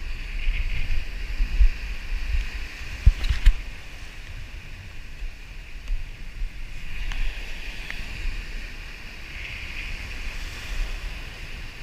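Surf breaking and washing over a rocky shore, with wind buffeting the microphone in gusty low rumbles. A couple of sharp knocks stand out about three seconds in.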